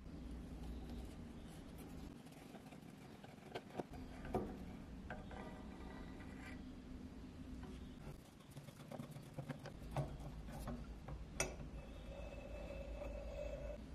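Screwdriver turning rusty screws in a cast-iron mechanical coin bank: small metal scrapes and clicks, with a few sharp taps of tool on metal, the loudest about four seconds in and twice more near the end.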